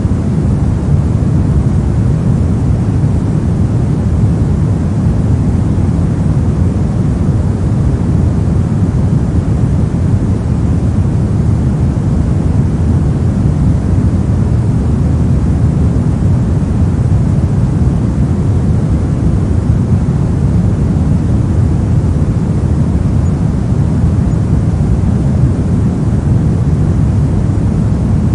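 Steady pink noise: an even, unchanging rush of synthetic noise, heaviest in the deep range and thinning toward the top.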